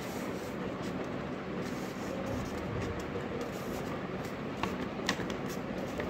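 Steady background hiss with a few faint crackles from a sheet of A4 paper being handled and folded.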